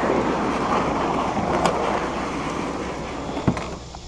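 Canoe hull scraping and grinding over gravel as it is pushed off the shore, the scrape fading out near the end. A sharp knock about three and a half seconds in.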